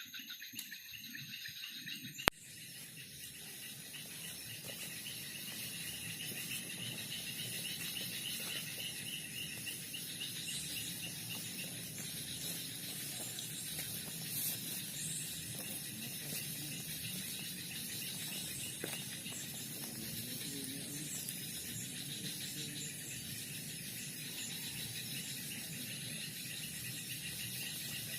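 Insects such as crickets or cicadas chirring steadily in a dense chorus. A single sharp click sounds about two seconds in.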